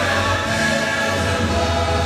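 Mixed choir singing with a full orchestra of strings and brass, a steady, held passage.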